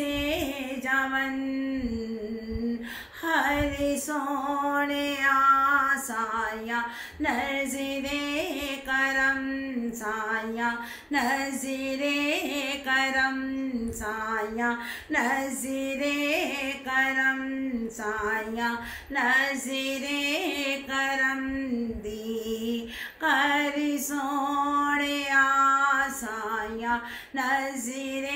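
A woman singing a naat solo, with no instruments, in held notes that bend and waver, phrase after phrase with short breaks between them.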